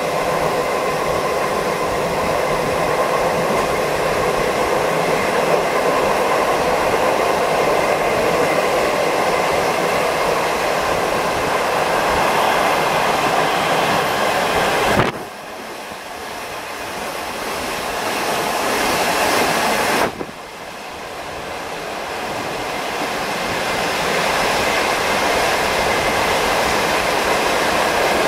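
Wind rushing through the open windows of a moving non-air-conditioned passenger coach, over the rumble of the running train. About halfway through there are two sudden thumps about five seconds apart, and after each one the noise drops off and slowly builds back.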